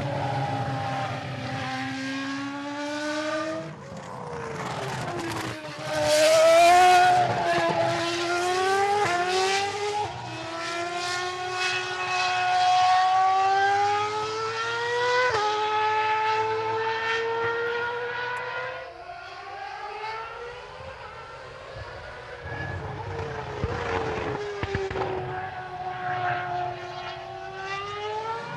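Formula One car engine accelerating through the gears, its pitch climbing and then dropping sharply at each upshift, and falling away as the car slows for corners.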